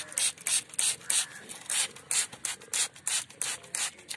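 Hand trigger spray bottle misting water onto seedlings: a quick run of short hissing squirts, about three a second.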